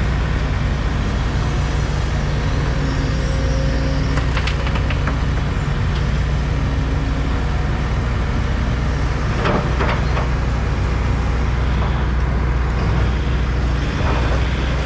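Steady low hum of heavy diesel engines, from trucks or site plant, with a few short knocks and clanks about four and a half and ten seconds in.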